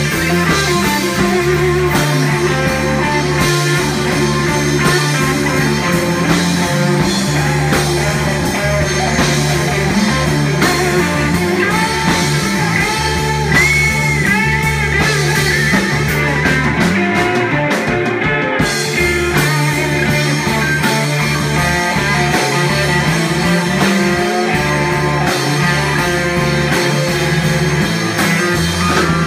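Rock band playing, led by guitar over bass and drums, with bending guitar lines about halfway through.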